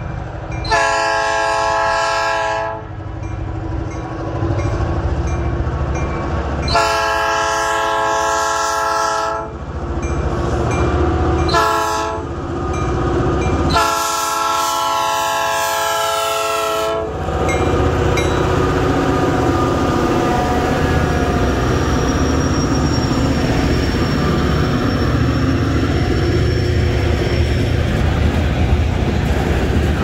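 A freight train's multi-chime air horn sounds the grade-crossing signal: two long blasts, a short one, then a long one. After the last blast the locomotive's diesel engine rumbles past and the freight cars roll by, their wheels clattering over the rails.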